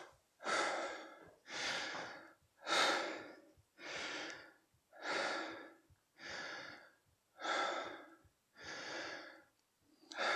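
A man breathing hard and deeply, about nine breaths at roughly one a second, as he recovers after a high-intensity burst of exercise.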